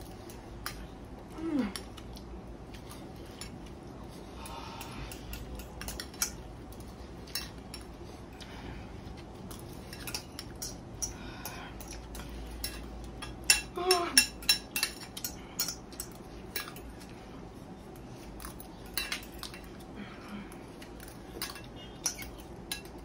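Spoon and fork clinking and scraping against a ceramic bowl and a glass bowl as instant noodles are eaten in a hurry: scattered light clicks, with a busier run of louder clinks about halfway through and again near the end.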